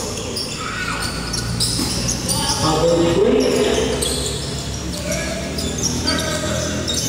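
Basketball being dribbled and bouncing on a hard court in a hall, a series of short thuds, with players and spectators talking and calling out.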